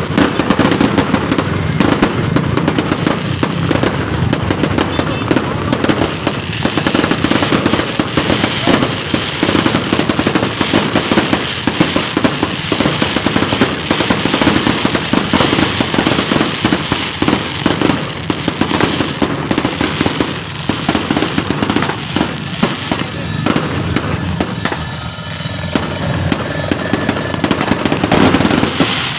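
Fireworks going off in a dense, continuous barrage of bangs and crackles, the reports coming too fast to count, easing slightly for a few seconds near the end.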